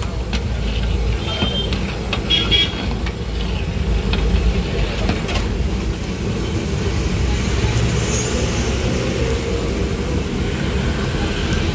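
Pieces frying in hot oil in a large aluminium pot, sizzling steadily, with a metal ladle clinking and scraping against the pot a few times, over a steady low rumble.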